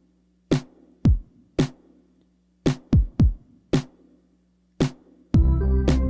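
Background music: a sparse drum-machine beat of deep kick drums that drop in pitch, with sharp hits. About five seconds in, a fuller section with sustained chords and bass comes in.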